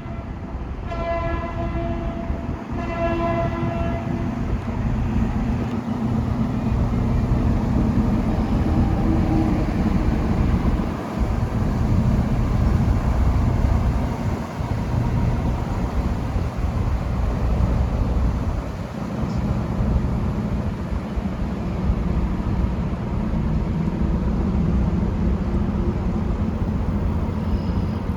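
A horn sounds two short blasts on one steady note in the first few seconds, then stops. A loud, steady low rumble runs underneath.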